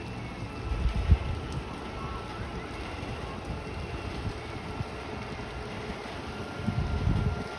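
Wind buffeting the microphone in two strong gusts, about a second in and again near the end, over a steady rush of wind.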